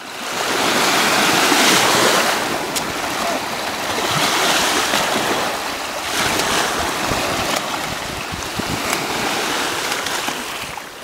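Small waves washing in over a shallow sandy beach: a steady rushing of surf that swells and eases.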